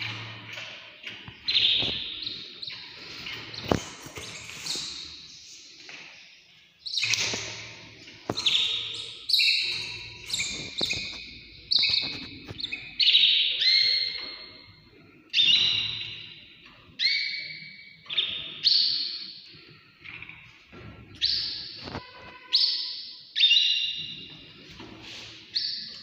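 Small caged birds chirping: clear high notes repeated about every second or so. Scattered knocks and rattles come in the first few seconds.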